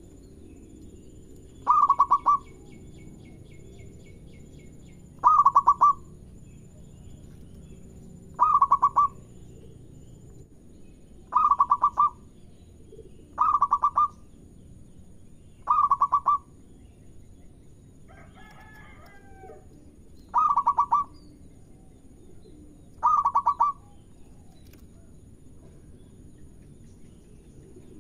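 Zebra dove (perkutut) cooing: short, rapidly pulsed coo phrases, repeated eight times about every two to three seconds. A fainter, different bird call comes about two-thirds of the way through.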